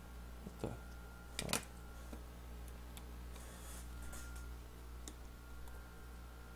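Faint clicks and taps of small tools and phone parts being handled while an iPhone 6 is taken apart. The two loudest taps come within the first second and a half, with fainter ticks after, over a steady low hum.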